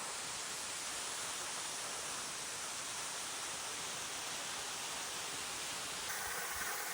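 Steady rushing roar of a waterfall, an even wash of noise with no distinct events; its character changes slightly about six seconds in.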